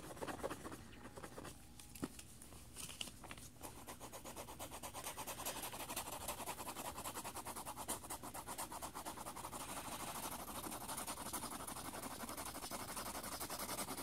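Mechanical pencil lead scratching rapidly back and forth across lined paper as an area is shaded in. The strokes come as a fast, even scratching rhythm that becomes steadier and denser about four seconds in.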